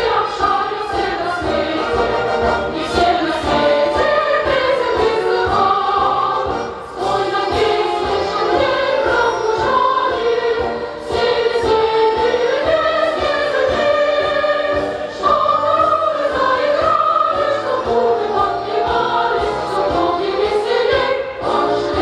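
Large massed choir, many of them children, singing a bright song together over instrumental accompaniment with a steady beat.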